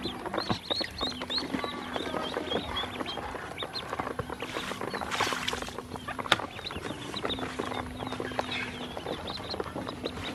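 A group of ducklings peeping: many quick, short, high peeps overlapping one another. Beneath them runs a steady low hum; there is a brief rustle about five seconds in and a sharp click a little after six seconds.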